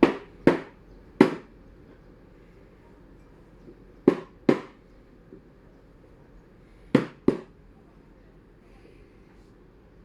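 Sharp knocks of a hard object on a hard surface in three groups: three quick knocks, then two, then two.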